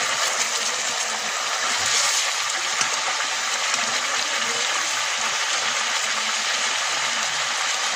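Whole chicken frying in hot oil in a blackened pan: a loud, steady sizzle.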